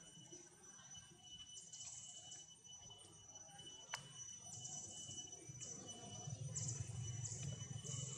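Forest insects, such as cicadas, buzzing in repeated high-pitched pulses over a steady thin whine; the pulses come more often in the second half. A low rumble grows louder about six seconds in, and a single sharp click sounds about four seconds in.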